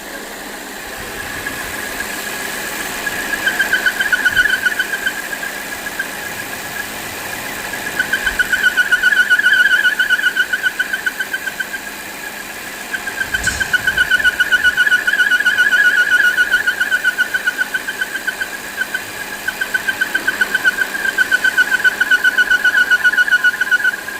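Squeal from a Volvo XC60's defective PCV valve with the engine running. It is a steady high whistle with a fast flutter that swells and fades in several waves, with one brief click about halfway through.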